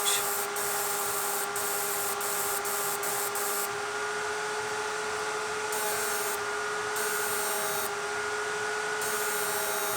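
Homemade 12 V inverter fish-stunning machine running under a 2500 W bulb load. It gives a steady electrical whine over the hiss of its cooling fans.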